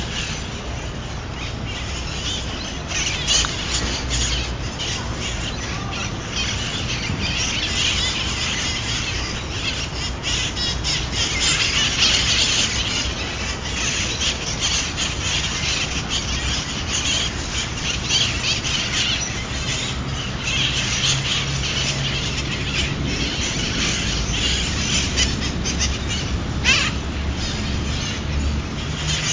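A flock of wild parrots (feral conures) squawking, with harsh, overlapping screeches coming in bouts, over a steady low rumble.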